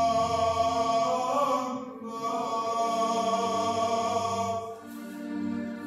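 Church choir singing Greek Orthodox liturgical chant in long held notes, with a brief break in the singing about two seconds in.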